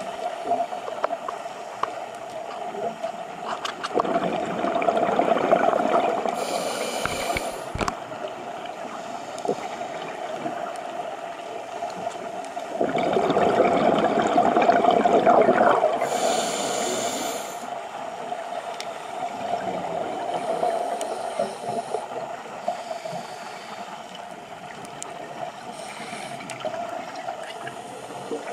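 Scuba diver breathing through a regulator underwater: two long gurgling rushes of exhaled bubbles, about four seconds in and again near the middle, each followed by a short high hiss of inhalation, over a steady drone.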